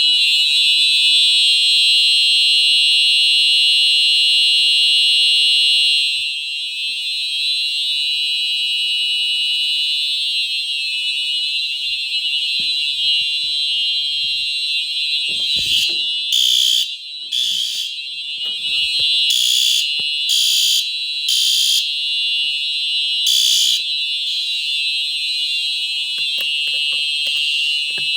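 Several fire alarm horns, among them a Simplex TrueAlert set to continuous, sounding together in a loud, steady, high-pitched blare after a pull station is pulled. Between about 16 and 24 seconds in, short on-off blasts of a horn cut in over the steady sound.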